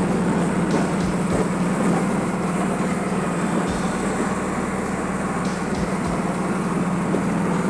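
Vehicle engine and road noise heard from inside the cabin while driving: a steady low drone with a few light bumps.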